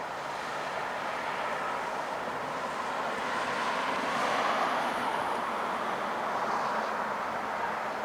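A passing vehicle: a rushing noise that swells to a peak about four and a half seconds in and then eases off.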